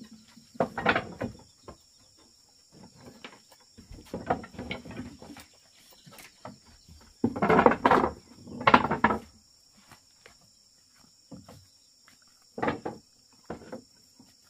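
Several bursts of rough noise, each about a second or two long, over a steady high-pitched drone of insects.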